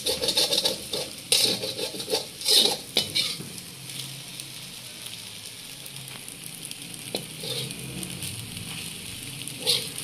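Slotted metal spoon scraping and turning crumbly semolina halwa in a metal pan, with several loud strokes in the first three seconds and another near the end. In between there is a quieter steady sizzle from the ghee-rich halwa in the pan.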